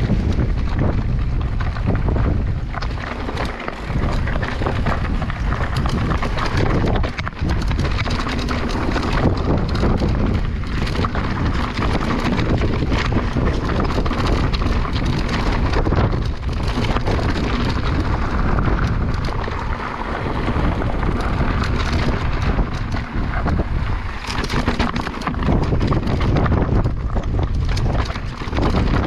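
Wind buffeting the microphone over the continuous rattle and knocks of an electric mountain bike riding a rough trail.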